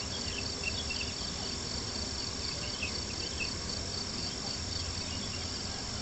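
Crickets chirping in a steady, evenly pulsing trill, with a few short chirps scattered over it.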